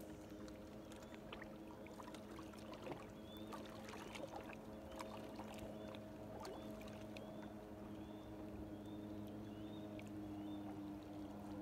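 Boat engine idling, a steady low hum. A bird repeats a short high call roughly every half second through the middle.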